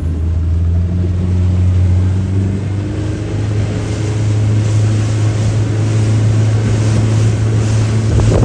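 Motorboat engine running under way. Its pitch steps up about three seconds in as the throttle opens, then holds steady over a rushing hiss.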